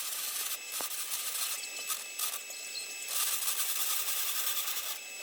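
Welding arc crackling and sizzling in several short runs that start and stop, the longest near the end, as steel plate is welded into a truck frame crossmember.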